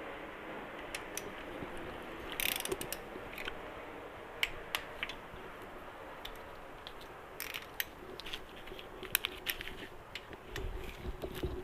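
Hand ratchet wrench clicking in short, uneven runs as engine case bolts are turned.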